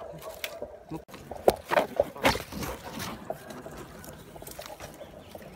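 Branches and leaves rustling and cracking close by as someone climbs a tree, with a cluster of sharp knocks and snaps midway, alongside a person's voice.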